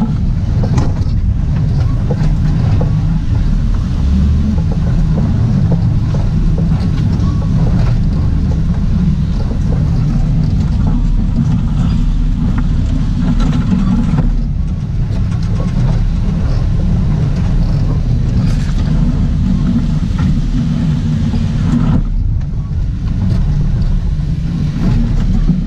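LS-swapped Jeep Wrangler TJ's 5.3 V8 running steadily while crawling a rocky trail, with scattered knocks and rattles as the Jeep jolts over the rocks.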